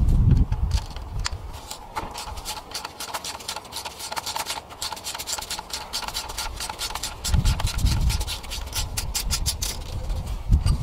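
A hand tool working T30 Torx bolts loose on an auxiliary pump bracket: a run of quick metallic clicks and scrapes, with a low rumble about seven seconds in.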